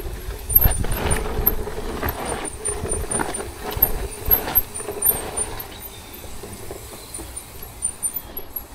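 ProPain Ekano 2 mountain bike ridden over a rocky trail: tyre rumble with many knocks and rattles as the wheels and frame strike rocks. The clatter is busiest in the first five seconds and eases off after that.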